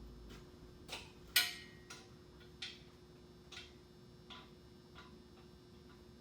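Hand tools working on an engine's exposed valve train: half a dozen sharp clicks and taps at uneven intervals, the loudest about a second and a half in, over a faint steady hum.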